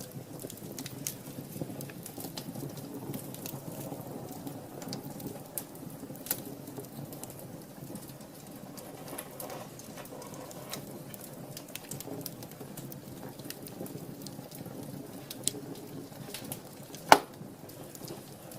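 Wood fire burning in a fireplace: a steady low rush of flames with scattered small crackles, and one sharp, loud pop near the end.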